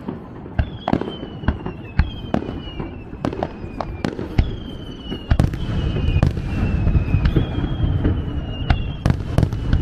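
Japanese fireworks display: a rapid series of sharp bangs from bursting shells, with several whistling shells whose tone falls slowly. About halfway through, the bursts grow denser and louder.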